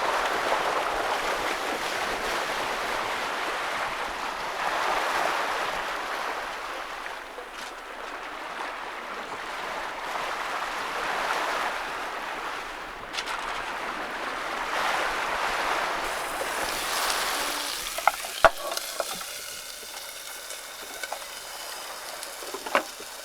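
Water rushing along the hull of a sailing yacht under way in a strong wind, swelling and easing every few seconds. About three-quarters of the way through it quietens, and a few sharp clicks and knocks follow.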